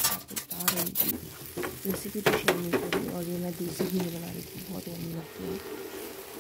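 Wooden spatula stirring and scraping instant noodles and vegetables in a non-stick frying pan, with irregular scrapes over steady sizzling as the food fries.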